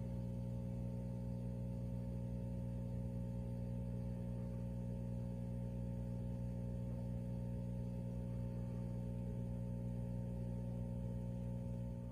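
Steady low electrical hum made of several fixed tones, unchanging throughout.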